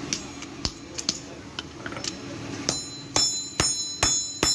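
Hand hammer striking hot spring steel on an anvil during forging. A few lighter taps, then from a little past halfway a steady run of ringing blows, about two a second.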